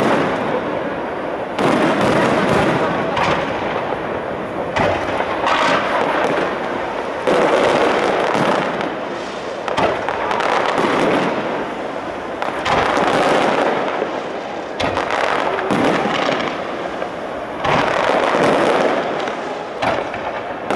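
Aerial firework shells bursting one after another, with a sharp bang every second or two and dense crackling in between.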